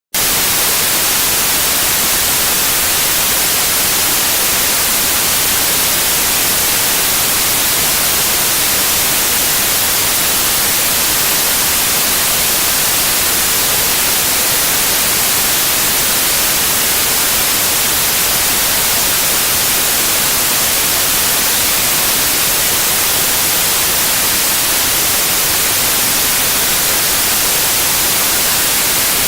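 Loud, steady white noise: an even, unchanging hiss that switches on abruptly out of digital silence at the very start.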